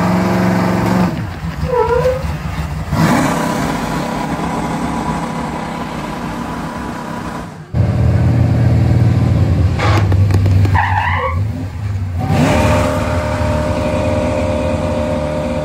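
Motor-pump team vehicle engines running hard and revving, in several short cuts.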